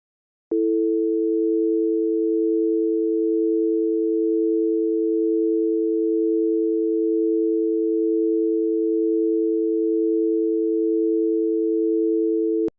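Telephone dial tone: a steady, unbroken hum of two low notes sounding together. It starts about half a second in and cuts off abruptly just before the end.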